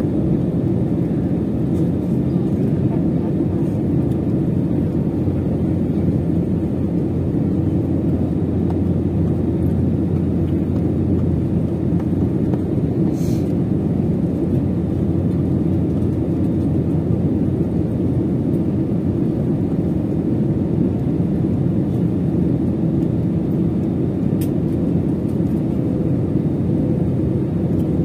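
Steady low drone of an airliner's engines and rushing air, heard from inside the passenger cabin as the plane descends to land.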